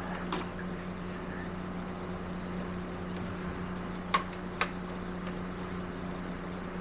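A steady low mechanical hum, like a running fan, with a few sharp clicks: one just after the start and two close together about four seconds in, as parts are handled on the motorcycle.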